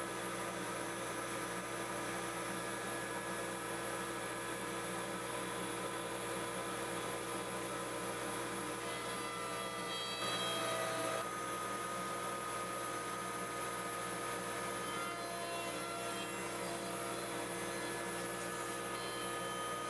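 Electric router motor running at a steady high speed, a constant whine with several fixed tones, while it hogs out the edges of a plywood table-saw insert. It gets a little louder about ten seconds in.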